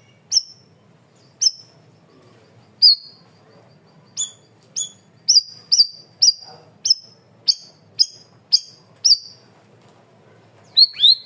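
Pin-striped tit-babbler (cucak rawis) singing: a series of sharp, high whistled notes, each a quick drop then a short held note, coming about twice a second in the middle, then a sweeping call near the end.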